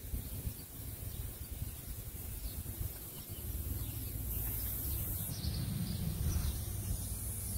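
Outdoor background noise: a steady low rumble on the microphone with faint, scattered bird chirps, and a high hiss that gets louder about four seconds in.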